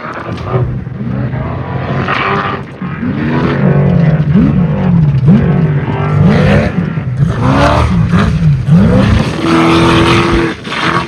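Off-road race UTV engine revving up and down over and over, its pitch rising and falling about once a second as the throttle is worked. Near the end it is held high for about a second before dropping off.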